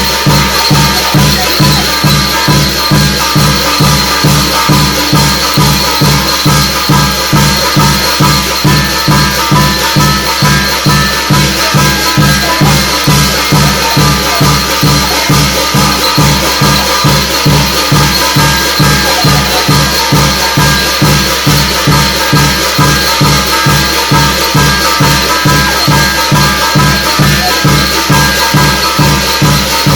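Korean shamanic gut ritual music: a drum keeps a fast, even beat under continuous jangling, rattling percussion.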